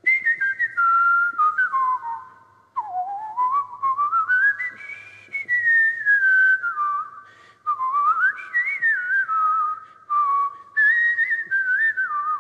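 A man whistling an improvised jazz melody with his lips: one clear tune that steps and glides between notes, in several short phrases with brief breaks for breath.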